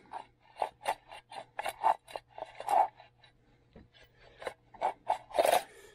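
Nylon starter rope rubbing and rasping as it is handled and drawn through a snowmobile recoil starter housing: a string of short, irregular rasps, with a longer, louder rasp near the end.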